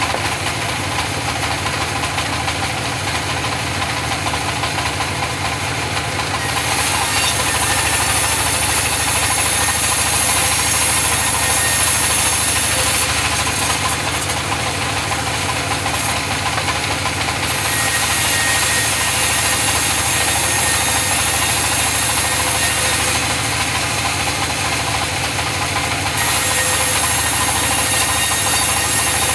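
Sawmill machinery running while mahogany is sawn: a steady engine note, with a higher hiss that swells for several seconds at a time and drops back, about three times.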